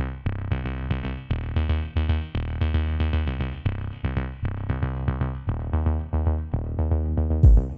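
Electronic background music: short repeated synthesizer notes over a heavy bass line, with a drum-machine beat that comes in sharply near the end.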